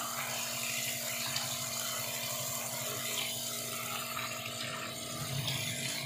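Electric water pump motor humming steadily while a pressurised jet from a hose sprays onto an air cooler's honeycomb cooling pad.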